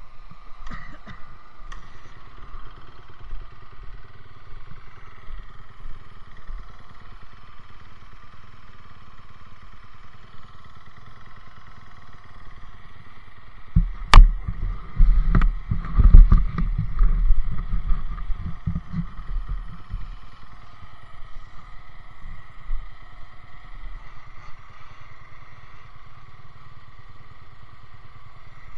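Dirt bike engines running steadily in the background. About halfway through, several seconds of loud knocks and rubbing right against the microphone as riding gear is handled close to it, starting with one sharp click.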